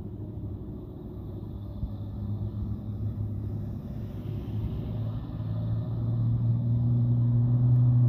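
A loaded Mitsubishi truck's diesel engine labouring up a steep climb, its low drone growing louder and steadier over the last few seconds as it nears. Lighter car and van engines pass in front of it.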